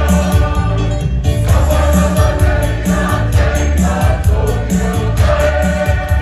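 Large mixed choir singing a Christmas action song over music with a steady beat and heavy bass.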